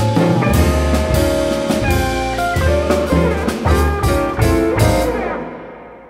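Jazz quartet of guitar, grand piano, double bass and drum kit playing the closing bars of a tune, with regular drum strikes under the chords. About five seconds in the music dies away.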